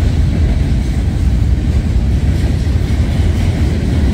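Diesel locomotives of a train held at a crossover idling, heard as a steady low rumble.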